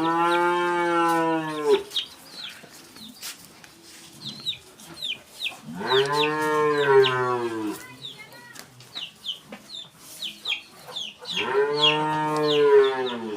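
Holstein Friesian dairy cows mooing: three long calls of about two seconds each, rising and falling in pitch, near the start, about six seconds in, and about twelve seconds in. Short high bird chirps between the calls.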